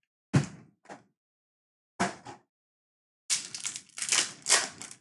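Cardboard and card-pack handling: two sharp knocks, each followed by a lighter one, then, from a little past three seconds in, the plastic wrapper of a foil trading-card pack crinkling as it is torn open.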